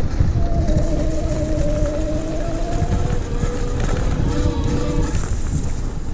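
20-inch 250 W rear hub motor of an e-bike whining under throttle, its pitch sagging slightly and then dropping lower before fading out about five seconds in. Under it, heavy wind buffeting on the microphone and tyre rumble on a rough path.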